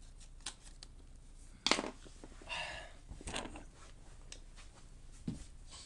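Light clicks, taps and a short rustling scrape of plastic laptop parts being handled during disassembly, with the sharpest click a little under two seconds in.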